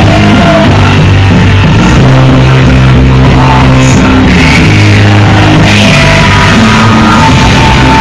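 Loud rock music with a moving bass line, steady and unbroken.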